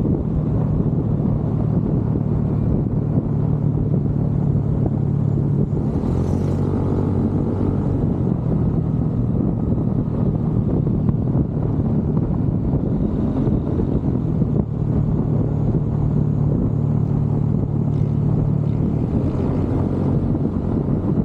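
Motorcycle engine running at a steady road speed, with a low, even drone and wind noise on the microphone.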